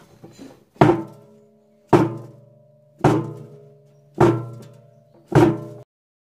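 Five heavy knocks on a washing machine's plastic tub and stainless steel drum, about one a second, each leaving a short ringing tone that dies away; the last is cut off abruptly.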